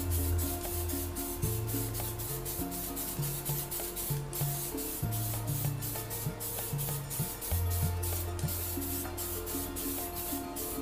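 Aerosol spray can hissing as matte clear coat is sprayed onto a motorcycle wheel, under background music with a bass line and a quick, even high beat.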